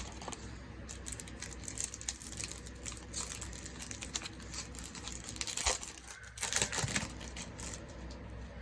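Magic: The Gathering booster pack's foil wrapper crinkling and tearing open, with cards being shuffled and handled. The loudest rustling comes about six to seven seconds in.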